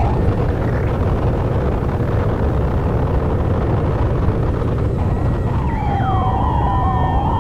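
A steady low rumble on the stage soundtrack. About five and a half seconds in, sliding, wavering electronic tones join it.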